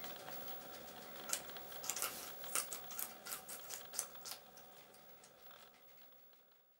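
Guinea pigs chewing red bell pepper: a quick run of crisp crunching bites, then fading away near the end.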